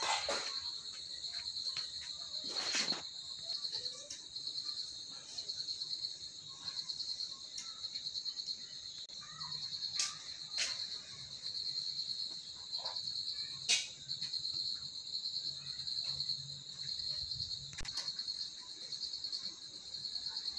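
Insects chirping in a steady, high, rapidly pulsing trill, with a few short sharp clicks scattered through it.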